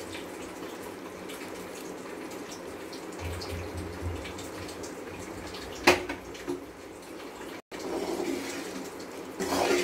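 Mysore pak batter of gram flour, sugar syrup and ghee frothing and sizzling in a hot aluminium pan as more ghee is poured in, then stirred with a steel ladle. There is a sharp clink about six seconds in.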